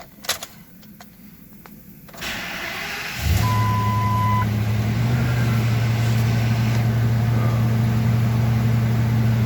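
A few clicks, then a 2005 Ford F250's 6.8-litre three-valve Triton V10 is started a little over three seconds in and settles into a steady idle, with a dashboard chime beeping once for about a second just after it catches. The engine has a misfire on one cylinder.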